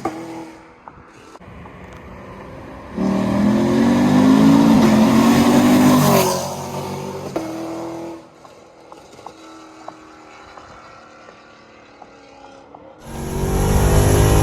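2020 SS's V8 with 2-inch long-tube headers and the stock exhaust: a short blip near the start, then a loud rev about three seconds in that rises, holds and falls off after about three seconds, dropping back to a quieter idle. Near the end another loud sound comes in.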